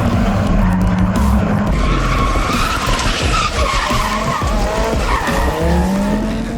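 Drift car engine revving up and down while the tyres skid through a slide, with background music.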